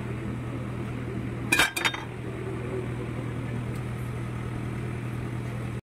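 Metal kulfi moulds clinking against the steel kulfi chest: a short clatter of two or three ringing strikes about a second and a half in, over a steady low hum.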